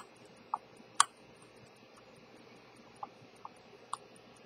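Sharp clicks of a hand tool pressed and tapped against the enamel dial of an early Elgin 17-jewel pocket watch. Two loud clicks come at the start and about a second in, with lighter ones between and near the end. Underneath, the watch movement ticks faintly and evenly, several beats a second.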